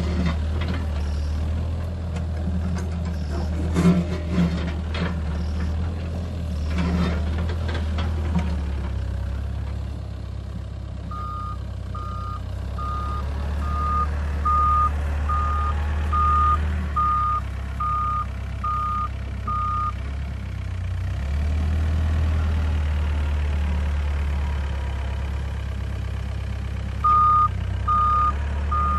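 Doosan DX55WA wheeled excavator's diesel engine running steadily, with a few knocks in the first eight seconds or so as the bucket works the dirt. Its travel alarm then beeps about once a second for around nine seconds, and starts beeping again near the end.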